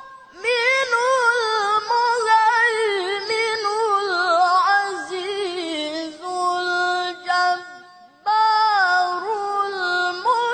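A young man's melodic Quran recitation (tilawah) sung into a microphone through a PA: one high, ornamented voice in long wavering phrases. It slowly falls in pitch to a held note, pauses for a short breath about eight seconds in, then starts a new phrase higher.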